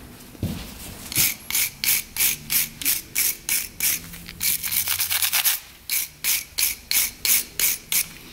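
Rhythmic back-and-forth scrubbing strokes on the threads of a motorcycle gas tank's petcock opening, about three a second, with a quicker run of strokes about halfway through.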